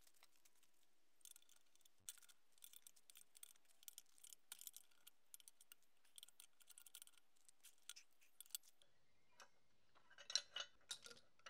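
Faint, irregular light clicks and clinks of hand work on hydraulic hose fittings, with a louder flurry of clicks near the end.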